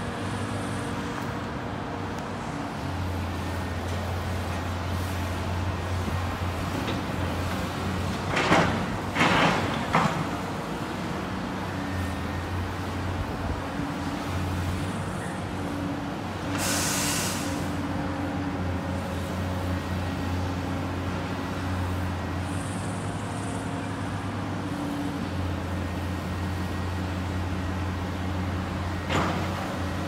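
Diesel engines of tracked excavators, a Volvo and a Cat, running steadily with a low hum. Several loud metal clanks come about eight to ten seconds in, a short hiss about seventeen seconds in, and another clank near the end.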